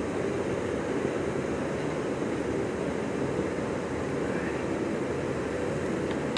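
Steady low background noise with no distinct events: the ambient din of the indoor panda enclosure.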